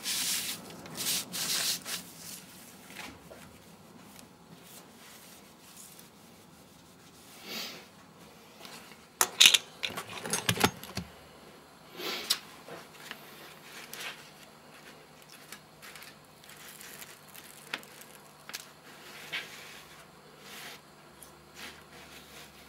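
Steel wool scrubbing the underside of a metal laser-table gantry in short rubbing strokes, cleaning off smoke residue. Later come scattered handling knocks and clicks; the loudest is a cluster of sharp knocks about nine to eleven seconds in.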